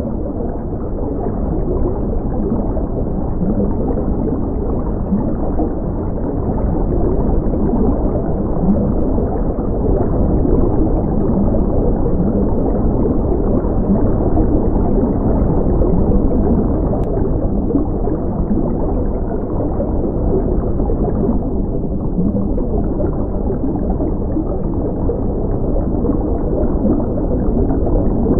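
Steady, muffled rush of water as heard underwater, with nothing in the high pitches.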